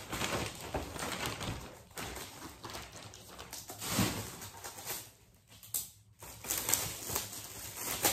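Shiny metallic gift wrap and paper rustling and crinkling as presents are torn open and handled, dying down briefly about five seconds in.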